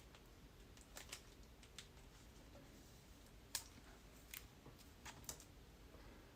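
Faint, scattered light clicks and taps over near silence, about ten in all at uneven intervals, the sharpest about three and a half seconds in.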